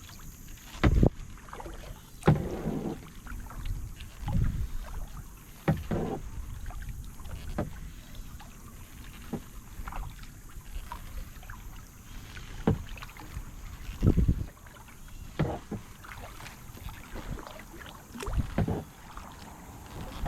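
Kayak paddle strokes in lake water: the blade dips and splashes on alternating sides about every one to two seconds, some strokes with a sharp splash or knock, with dripping water and light wind on the microphone between them.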